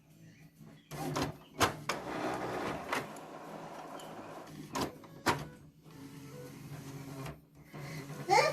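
Epson XP-4105 inkjet printer's mechanism running after power-up: a few sharp clicks and a short stretch of motor whirring, more clicks, then a steady low hum. This is the printer readying itself to accept its ink cartridges.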